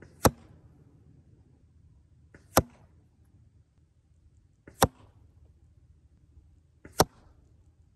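Bow shots, four in a row about two seconds apart, each a single sharp snap of the string releasing an arrow.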